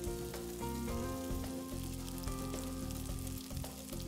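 Pieces of chicken breast sizzling and crackling in hot vegetable oil in a frying pan, under background music with long held notes.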